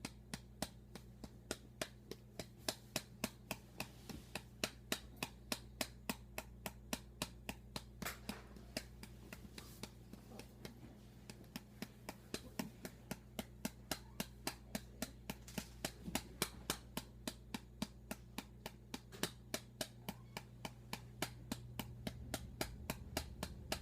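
Steady rhythmic patting on a baby's back to bring up a burp, sharp pats at about four a second.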